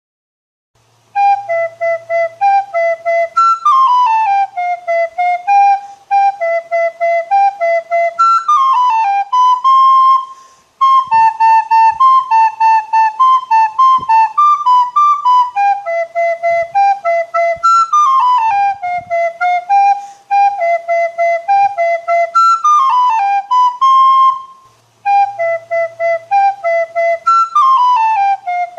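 Solo flute playing a lively melody of short, separately tongued notes with quick falling runs. The phrase repeats, with brief pauses between phrases.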